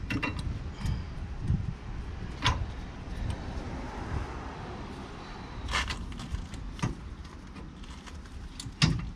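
Metal clicks and knocks as a rear brake caliper is worked back into place over the brake disc of a Peugeot Boxer van. A handful of sharp clinks are scattered through, with the loudest knock near the end, over a steady low rumble.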